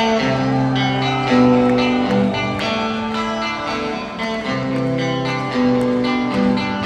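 Live rock music: an electric guitar plays a slow phrase of held, ringing notes, with no drums.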